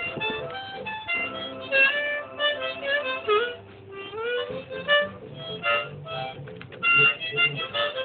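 Harmonica played hands-free, held in the mouth: a wandering tune of held notes and chords, with a couple of sliding bends in the middle.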